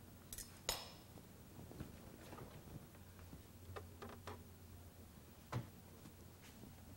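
Faint scattered clicks and knocks of a stainless steel mixing bowl being put into a refrigerator and the fridge door being handled, with the clearest knocks just after the start and near the end.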